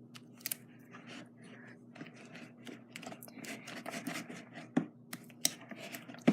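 Slime being stirred with a spatula in a bowl as Tide detergent activator is worked in. Wet scraping with sticky clicks and pops, which gets busier about three seconds in.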